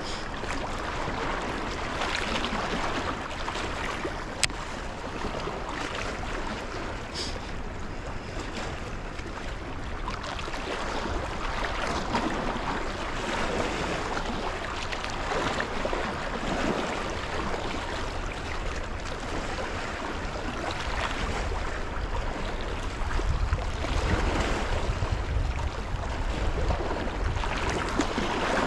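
Steady rush of river water below the dam, with wind buffeting the microphone in gusts that grow stronger in the second half.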